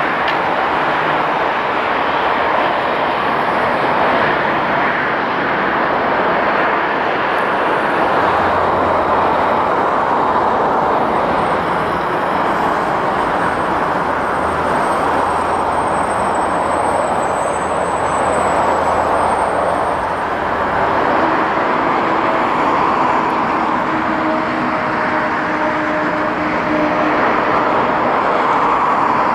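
Boeing 737-800 jet engines (CFM56-7B turbofans) running on the airfield: a loud, steady jet noise, with faint steady whining tones entering in the second half.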